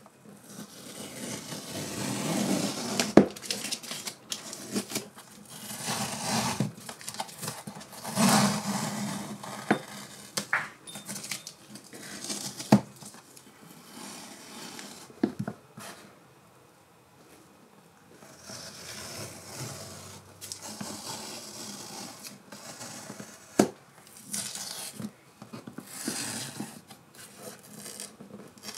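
Masking tape being peeled off the edges of a painted canvas: rough ripping and rustling strokes that come and go, with a few sharp clicks as the canvas is handled.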